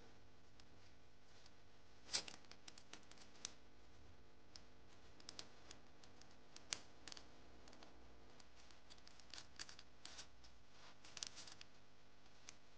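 Quiet handling noises: fingers moving a small plastic battery holder and a furry toy, with scattered short clicks and rustles, the sharpest about two seconds in. The small DC motor is not running.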